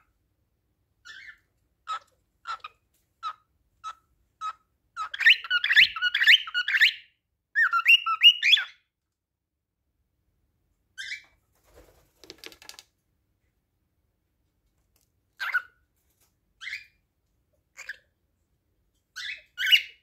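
Cockatiel singing. It opens with a run of short whistled chirps about every half second, then two bursts of fast warbled whistling, then scattered single calls. It is courtship song, sung to a budgie as if to a mate.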